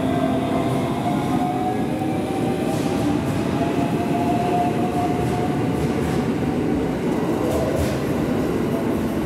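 Ainokaze Toyama Railway 521 series electric train running in along the platform: a steady rumble of wheels on rail with a faint motor whine that sags slowly in pitch, and a few faint clicks.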